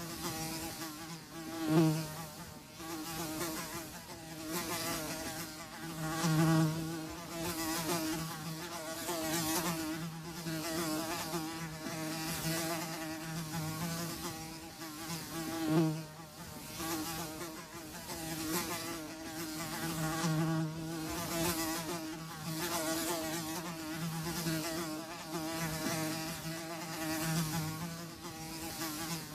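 Houseflies buzzing, a steady drone that swells and fades as they fly close and away, with brief louder passes about 2, 6.5 and 16 seconds in.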